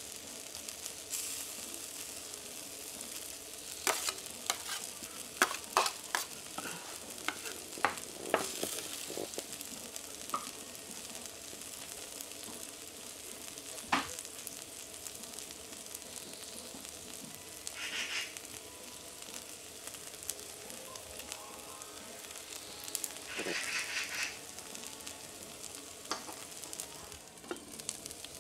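Fried rice sizzling on a hot teppanyaki iron griddle, with a steady hiss. Spatulas tap and scrape on the plate in a cluster of sharp knocks early on and once more near the middle. The sizzle flares up louder twice later on.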